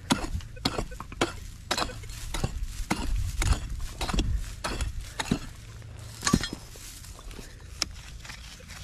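A digging tool chopping and scraping into soft soil, with irregular sharp clinks and scrapes about once or twice a second, as a hole is dug to recover a metal-detector target.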